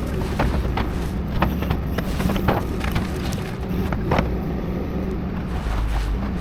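Diesel engine of a Doosan 235 excavator running steadily, with scattered sharp cracks and knocks of demolition debris breaking.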